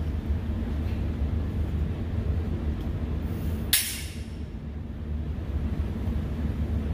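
A single gunshot about four seconds in, over a steady low rumble.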